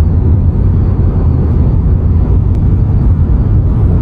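Inside the cabin of a refreshed Tesla Model Y at highway speed: steady road and wind rumble, with a faint, steady high whistle like air leaking in by the driver's or passenger's door, the sign of a gap in the seal.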